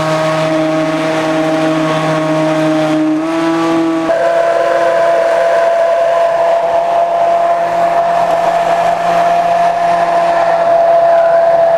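High-powered countertop blender running, blending cooked chickpeas and ice into hummus: a steady motor whine that steps up in pitch twice, about three and four seconds in, then holds level.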